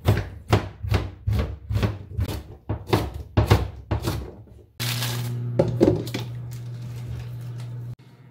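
Kitchen knife chopping onion and then green onion on a plastic cutting board, in regular strokes about two and a half a second. A little past halfway the chopping stops and a steady hum with a hiss takes over, from the pan of octopus in water on the induction cooktop.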